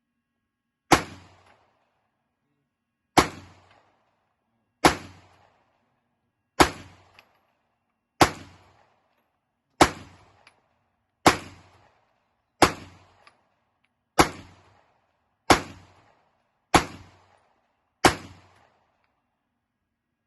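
A firearm fired twelve times in slow, steady succession, one shot every second and a half or so, each a sharp crack with a short echoing tail.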